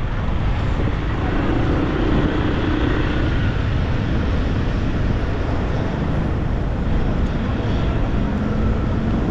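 Road traffic: a steady rumble of motorbike and car engines running on a busy street, with a faint engine hum rising slightly near the end.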